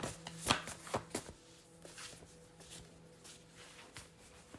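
Tarot cards being shuffled and handled: a cluster of crisp card snaps in the first second or so, then softer, sparser card sounds.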